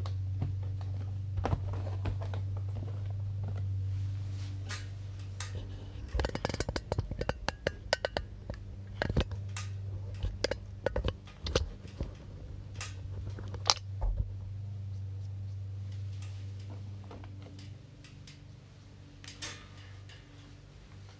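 Sports-card boxes and packs being handled on a table: scattered taps, clicks and knocks, busiest in the middle stretch. A steady low hum runs underneath.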